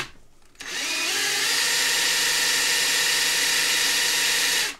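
Ryobi ONE+ cordless drill spinning a coin ring on a rubber polishing cone pressed into 0000 steel wool. It stops at the start, spins back up about half a second in with a rising whine, runs steadily, then cuts off near the end.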